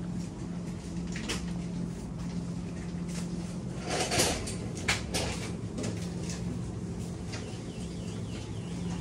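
Supermarket ambience: a steady low hum from the refrigerated cheese cases, with a few sharp clattering knocks about four to five seconds in.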